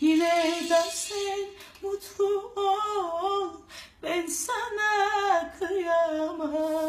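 A solo voice singing a Turkish song unaccompanied, with wavering, ornamented turns on held notes and short breaks for breath between phrases.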